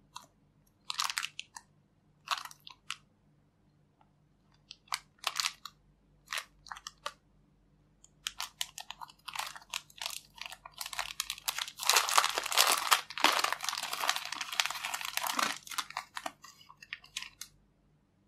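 Clear plastic packaging bag crinkling as it is handled and a small foam squishy toy is pulled out of it: a few short crinkles at first, then a long spell of continuous crinkling that is loudest a little past the middle.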